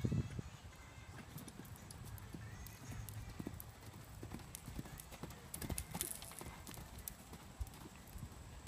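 Hoofbeats of a horse cantering on sand arena footing, an uneven run of dull thuds with scattered sharper clicks.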